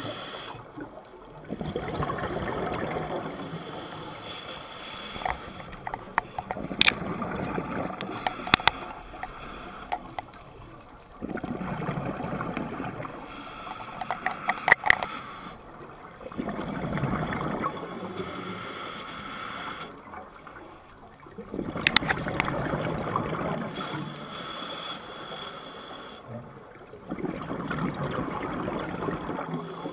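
Scuba regulator breathing underwater, heard through a GoPro's waterproof housing. The exhaled bubbles come as a gurgling rush lasting two to three seconds, about every five seconds, with quieter inhalations between and a few sharp clicks and pops.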